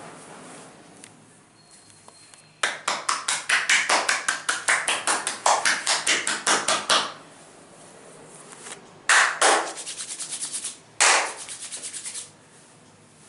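Hands slapping rapidly on a man's back in percussive massage strokes, about six quick strikes a second for some four seconds. After a pause come two louder single slaps, then two shorter fast runs of strikes.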